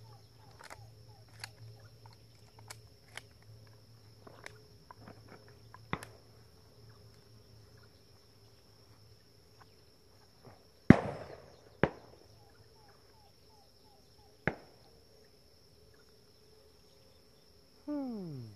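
Shotgun shots on a dove shoot: fainter distant pops in the first few seconds, then a loud close shot about eleven seconds in with another just under a second later, and a third about three seconds after. Insects keep up a steady high drone throughout.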